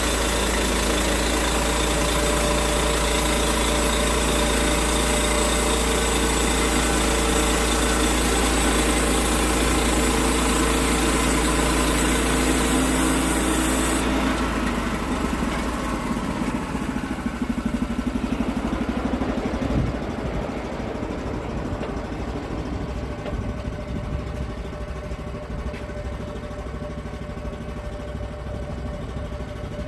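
An engine running steadily; about halfway through it becomes quieter and rougher.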